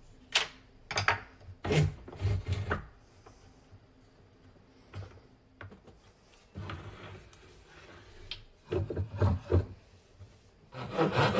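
Wooden block and hand tools knocked and set down on a wooden workbench: a quick run of sharp knocks and clatters in the first three seconds, then another cluster of knocks around nine seconds as the block is fitted into the bench vise. Just before the end, a handsaw starts cutting the wood with quick, even strokes.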